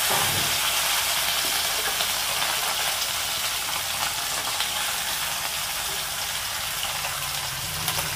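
Parshe fish frying in hot mustard oil in a kadai: a steady sizzle that eases off slightly toward the end.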